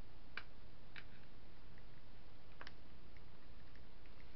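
Three faint small clicks from hands working copper wire through a hole in a skin boat's gunwale, over a steady low hum.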